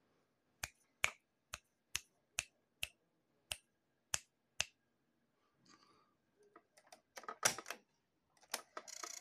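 A run of about ten sharp clicks, evenly spaced about two a second. After a pause come the heavier clunks of the Sony CF-370S cassette-recorder's piano-key transport buttons being pressed, and a steady tape hiss starts at the very end.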